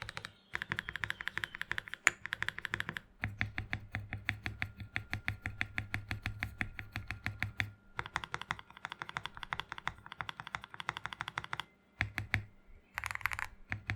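Fast typing on a CIY Gas67 custom mechanical keyboard with lubed Akko Jelly Black linear switches, tape mod, added PE sheet and case foam, and XDA keycaps. The keystrokes come in three long rapid runs separated by brief pauses, then a few scattered strokes near the end.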